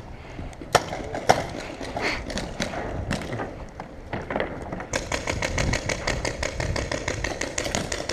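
Paintball markers firing: scattered single shots, then from about five seconds in a rapid run of shots.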